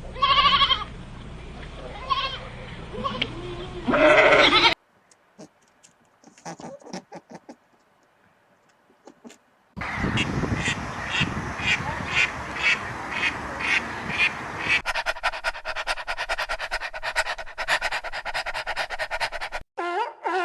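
Animal calls from several short clips cut together. First come loud pitched calls, then a few seconds of only faint sounds. After that comes a long run of rapid repeated calls, two or three a second.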